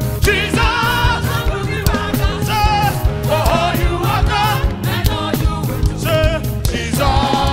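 Live African gospel praise music: several singers on microphones sing with vibrato over a band with a steady bass and drum beat.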